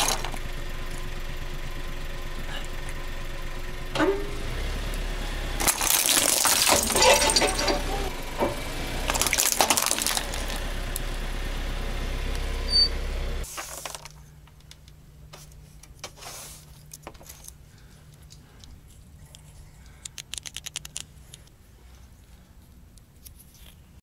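A car engine running steadily while a tyre rolls over a plastic Rubik's cube, which crunches and cracks apart about six to ten seconds in. The engine sound cuts off suddenly near the middle, leaving quiet with a few light plastic clicks of broken cube pieces.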